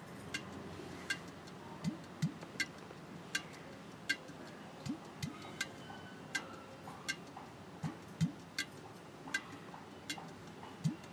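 Quiet background music with a ticking beat: evenly spaced sharp ticks a little faster than one a second, with pairs of short low bass notes every few seconds.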